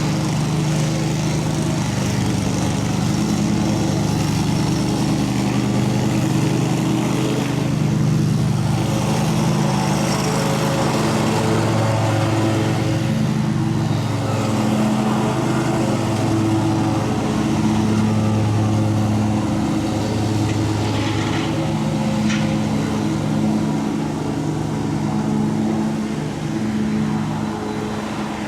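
Large excavator's diesel engine running, its note rising and falling every few seconds as it works under load.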